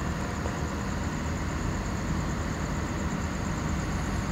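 Diesel engine idling steadily, with a faint thin high whine over its low hum.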